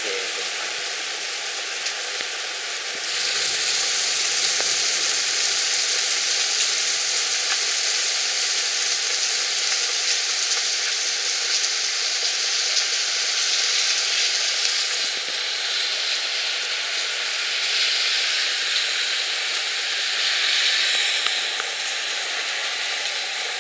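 Heavy hailstorm: hail and rain pouring down onto pavement and surroundings, a dense steady hiss that gets louder about three seconds in.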